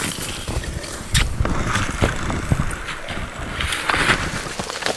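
Boots crunching through snow with a step about every second, brushing through snow-covered sagebrush.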